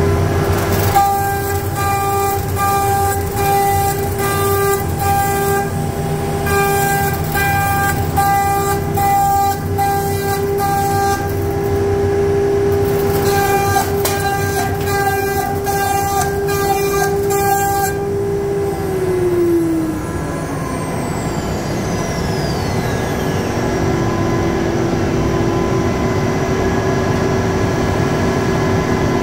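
CNC router spindle whining at a steady pitch while the bit cuts through timber in rough, noisy passes, with short breaks at about 6 and 12 seconds. At about 19 seconds the cutting stops and the spindle winds down with a falling whine, over a steady rush of dust extraction.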